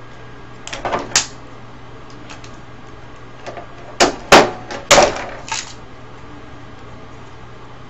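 Clatter of CRT TV parts being handled during dismantling: a few light clicks about a second in, then a burst of sharp knocks and clatter about four to five and a half seconds in.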